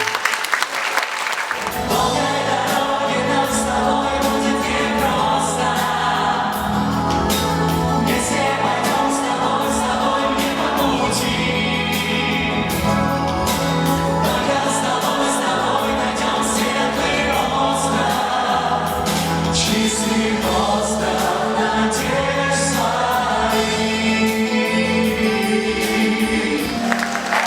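A choir singing, with a moving bass line under the voices; it comes in about two seconds in and carries on nearly to the end.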